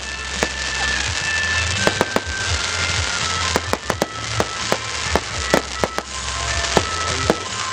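Fireworks going off in a rapid, irregular series of sharp bangs and crackles, over music.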